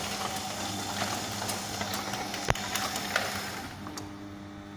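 Motor-driven cutaway model of a Royal Enfield Bullet 350 engine turning over: a steady mechanical whir and hum with scattered clicks, one sharp click about two and a half seconds in. The hissy part of the sound fades near the end.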